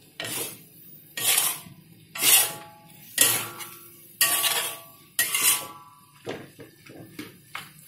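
Metal spatula scraping and knocking against a metal wok while stir-frying minced chicken, about one stroke a second, several with a brief metallic ring. The strokes get lighter and quicker near the end.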